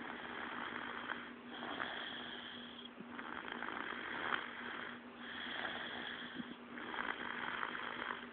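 Snoring: a run of noisy breaths, each about a second long with short gaps between them, over a steady low hum.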